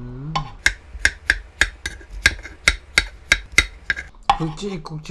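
Kitchen knife chopping Korean squash into thick chunks on a wooden cutting board: a run of about a dozen sharp knocks of the blade on the board, about three a second.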